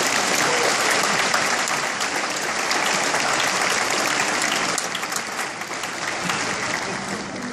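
Theatre audience applauding, a dense steady clapping that begins to die down over the last second or two.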